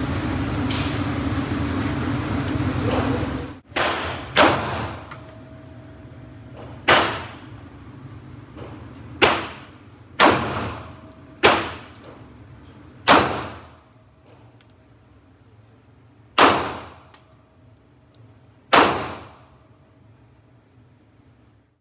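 Glock G48 9 mm pistol fired nine times, single shots one to three seconds apart, each a sharp crack with a short ringing echo off the walls of the indoor range. A steady rushing noise fills the first three and a half seconds before the first shot.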